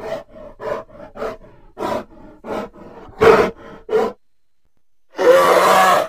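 Custom creature sound effects voicing a mastadge, a shaggy alien beast of burden: a run of short pitched grunts, about two a second, then a longer, louder roar starting about five seconds in.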